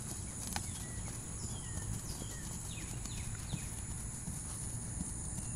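A horse's hooves cantering on grass: soft, muffled hoofbeats. Behind them runs a steady high-pitched hum, and a few short, high, falling chirps come near the middle.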